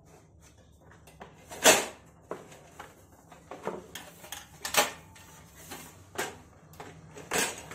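Knocks and clunks of a portable gas stove's casing being handled and turned over against its hard plastic carrying case: about six separate knocks, the loudest a couple of seconds in.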